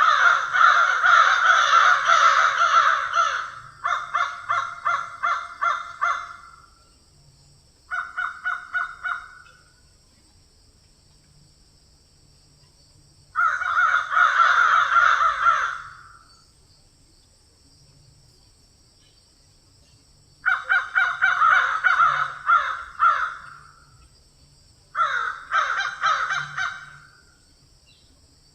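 Crows cawing in bouts of rapid, repeated harsh caws lasting a few seconds each, with quiet gaps of several seconds between. There are six bouts, and the first is the longest and densest.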